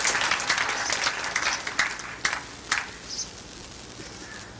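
Audience applause, scattered claps that thin out and die away within the first three seconds.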